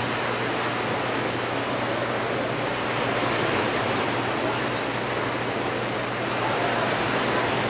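Small waves washing steadily on a beach, an even hiss with a faint low hum underneath.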